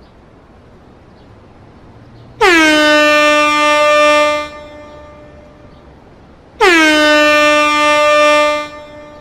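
Air horn sounding two blasts of about two seconds each, a few seconds apart; each starts with a quick drop in pitch, then holds one steady note until it cuts off.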